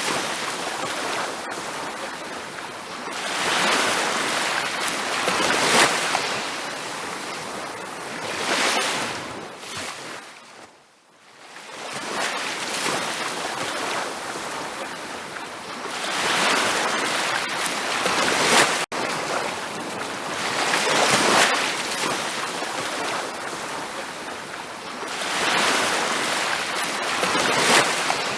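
Ocean surf breaking on a beach, a steady wash of noise that swells and ebbs every few seconds as waves come in. About eleven seconds in the sound fades almost to silence for a moment before the waves return.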